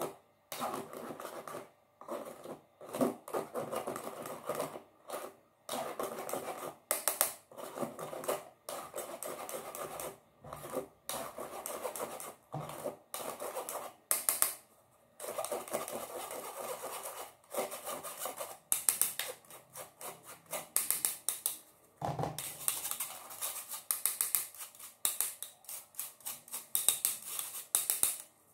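A spoon scraping and rubbing flour through a fine wire-mesh sieve, in irregular strokes with short pauses between them.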